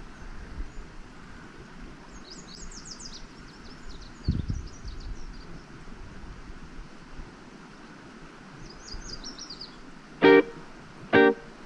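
Outdoor background with a songbird's rapid high trills, twice, and a low thump about four seconds in. Near the end, two loud short horn-like notes, about a second apart, are much the loudest sound.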